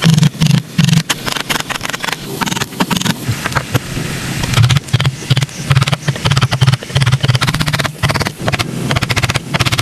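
Woodworking tools on wood: a busy run of sharp knocks and clicks over low, stop-start scraping strokes.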